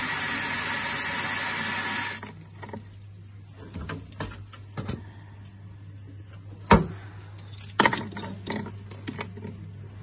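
Water jetting under system pressure from an open quarter-turn drain valve on a heating system's magnetic filter into a plastic bucket. It makes a steady hiss that stops abruptly about two seconds in: the heating system is being drained to bring its pressure down. Then low room sound with a few scattered clicks and knocks, the loudest just before the seven-second mark.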